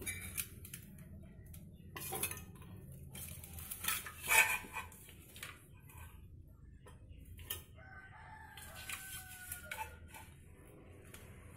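Steel spoon scraping and clinking against a stainless steel kadai as chopped coconut pieces are stirred, in scattered knocks. About eight seconds in, a rooster crows faintly in one long call.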